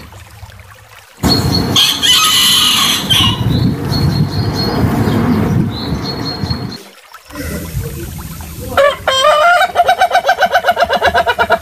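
Roosters crowing, one clip after another. A loud, harsh crow starts about a second in and runs several seconds. After a short break a second rooster crows, its call rising at the start, then trembling fast and evenly near the end.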